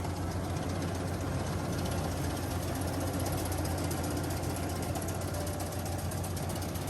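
A small engine running steadily at a fast, even knocking beat, starting abruptly.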